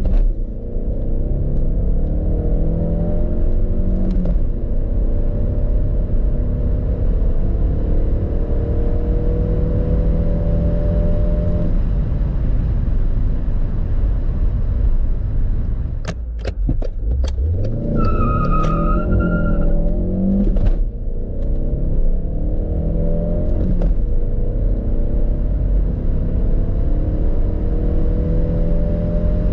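Škoda Rapid's remapped 1.2 TSI turbocharged four-cylinder petrol engine, heard from inside the cabin under full-throttle acceleration. Its pitch rises through each gear and drops at every upshift. Near the middle there is a quick run of clicks and a single short beep.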